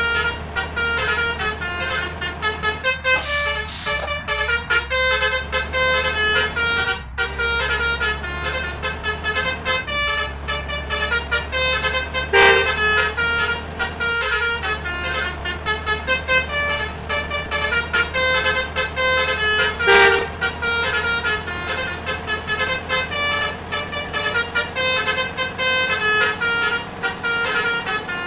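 Basuri ('telolet') multi-tone air horns on convoy vehicles playing quick melodic runs of short notes over a steady engine drone, with louder horn blasts about twelve and twenty seconds in.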